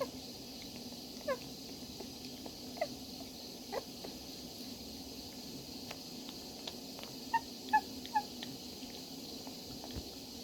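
Newborn puppies squeaking: about six short, high squeaks that fall in pitch, three of them close together near the end and loudest, over a steady faint hum.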